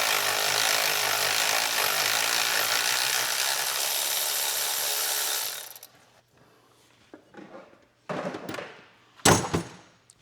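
A power tool runs steadily for about six seconds, then stops. A few short scraping and clanking sounds follow, with one sharp loud clank near the end.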